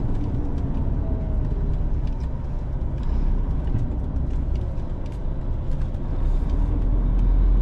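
Heavy goods lorry's diesel engine running at low speed as the truck manoeuvres, heard from inside the cab: a steady low rumble that grows louder near the end, with faint scattered clicks.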